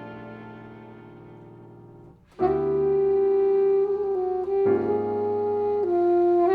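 Chamber jazz for alto saxophone, piano and string quartet: a held chord fades away, then about two and a half seconds in the alto saxophone comes in loud with long sustained notes, stepping between a few pitches over piano chords.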